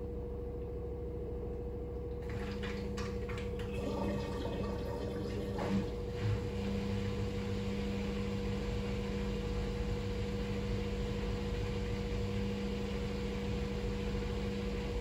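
Fisher & Paykel WM1480P front-loading washing machine in its intermediate spin, the drum motor holding a steady whine. About two seconds in, water starts rushing through the machine with a low hum underneath.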